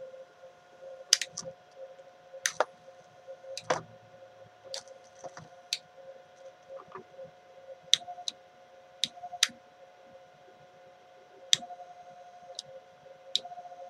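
A small electric motor running with a steady whine, while switches are clicked several times at irregular intervals during a wiring test; the motor turns when either switch is thrown.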